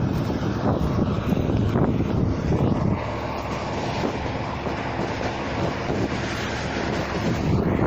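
Combine harvester running steadily in the field, with wind buffeting the microphone. The engine and threshing noise eases slightly about three seconds in.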